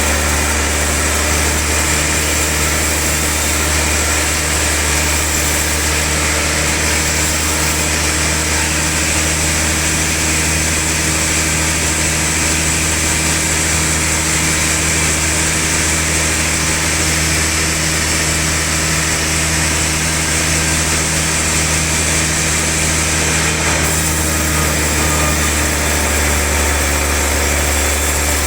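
Sawmill log saw running steadily with a constant low machine hum and hiss; the high hiss eases slightly near the end.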